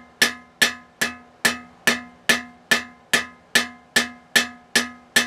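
Hand hammer striking a red-hot steel spoon bit on an anvil at a steady pace, about two and a half blows a second, each blow ringing out, as the forged bit is straightened.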